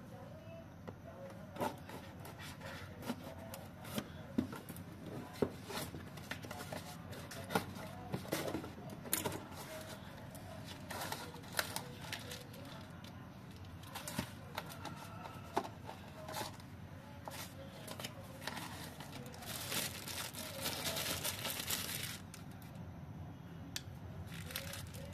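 Phone packaging being handled: the cardboard box, paper inserts and bubble wrap rustle and crinkle, with frequent sharp clicks and a denser stretch of crinkling about 20 seconds in.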